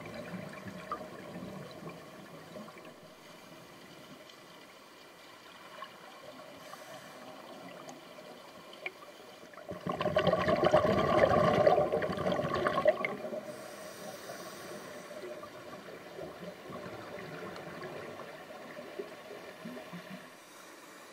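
Underwater sound picked up through a camcorder housing: a faint steady watery hiss, with one loud bubbling rush of a scuba diver's exhalation from the regulator lasting about three seconds, starting about ten seconds in.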